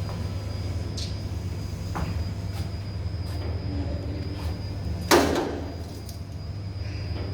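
Elevator machinery running: a steady low hum with a faint high steady whine, a couple of light clicks, and one loud clunk about five seconds in.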